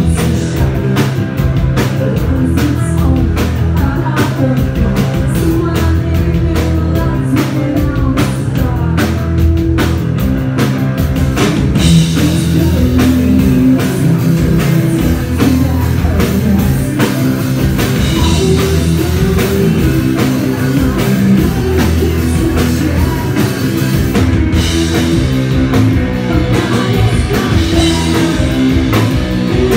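Rock band playing live: electric guitar, drum kit and singing, loud throughout.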